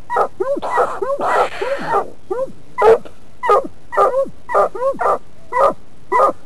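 Walker coonhound barking at the base of a tree: a steady run of short chop barks, about two a second, the way a hound bays a treed raccoon.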